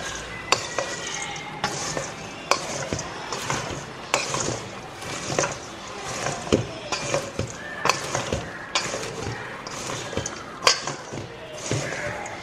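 Metal tongs clicking and scraping against a stainless steel bowl as popcorn is tossed, with the dry rustle of the popped kernels. The knocks come irregularly, a few a second, as the popcorn is turned to coat it in spiced butter.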